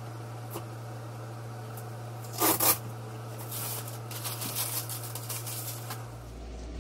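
Protective plastic film being peeled off a 3D printer's enclosure: one loud rip about two and a half seconds in, then crinkling of the loose plastic for a few seconds.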